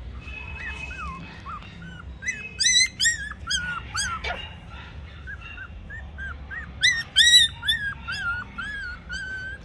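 Toy Pomeranian puppies yipping and whining in short, high-pitched calls, with two louder bursts of yips about two and a half and seven seconds in.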